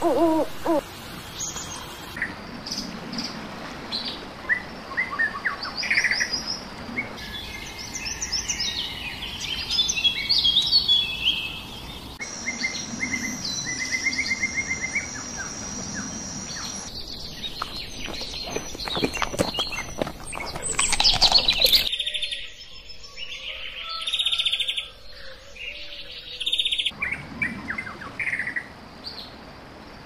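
Different birds calling and singing in short stretches, the background changing abruptly about every five seconds, opening with the last of an owl's hoots. Chirps, trills and whistled phrases follow, with a loud run of clicks about two-thirds of the way through.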